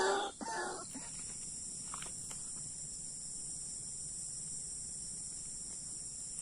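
Steady high-pitched insect drone over quiet outdoor ambience. A run of pitched bird calls dies away in the first second.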